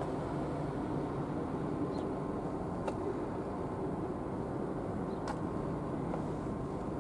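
Steady low mechanical hum of idling engines or machinery, with a few faint clicks about three and five seconds in.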